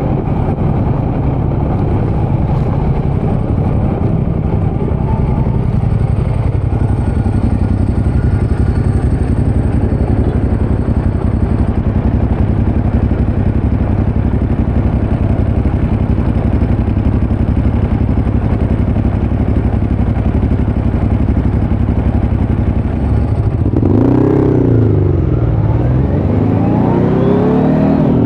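Kawasaki Z900's inline-four engine through a Leo Vince muffler with no dB killer, running at a steady cruise. About 24 seconds in the revs rise and fall in one quick blip, then they climb hard toward the end.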